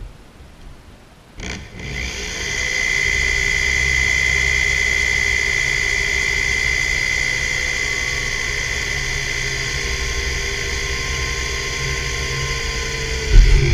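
Small electric pistol drill with a 3/32-inch bit running under load, drilling a pilot hole through a metal plate into the cast-iron head of a drill press: a steady high whine that starts about a second and a half in and stops near the end with a brief louder knock.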